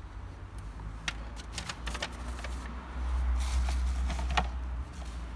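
Irregular clicks and rustling from objects being handled, over a steady low rumble that swells about three seconds in.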